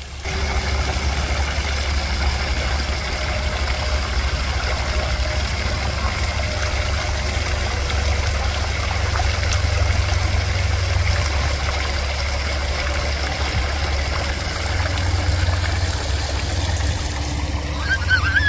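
Steady rush of water pouring down a manmade waterfall into a pond, with a deep rumble underneath.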